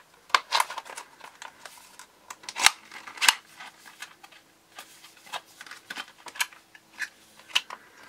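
Stiff plastic blister packaging and its cardboard backing being opened and pulled apart by hand: irregular crackles and clicks, with two sharper snaps a little under three seconds in and about half a second later.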